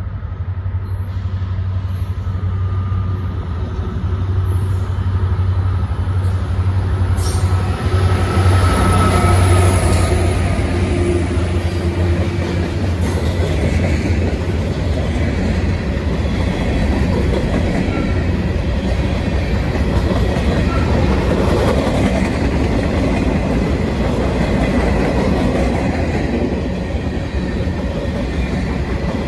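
Union Pacific freight train passing close: a deep diesel locomotive rumble builds through the first ten seconds or so, then gives way to the steady rolling noise of freight cars' wheels on the rails.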